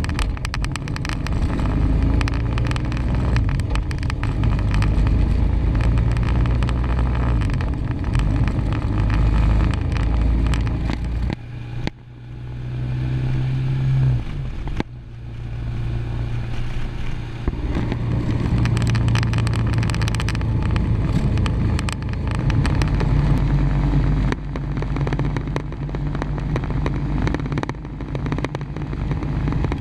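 Motorcycle-and-sidecar rig under way, heard from inside the enclosed sidecar: a steady low engine drone with road and wind noise and frequent small clicks and rattles. About halfway through the sound dips, then the engine note climbs for a couple of seconds and breaks off sharply before it settles back to cruising.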